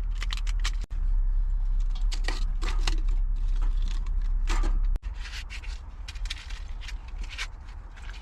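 Irregular short scrapes and clinks of hard objects being handled, over a low rumble that cuts off abruptly about five seconds in.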